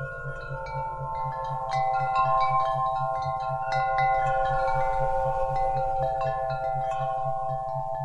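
Wind chimes ringing: many overlapping tones struck at irregular moments, each ringing on for seconds. Underneath runs a low isochronic tone, a steady hum pulsing evenly several times a second.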